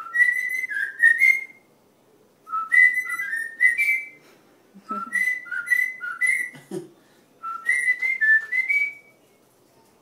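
A man and a cockatiel whistling the same short tune as a duet: four phrases of about a second and a half each, with pauses between. Each phrase steps from a low note up to a run of higher notes.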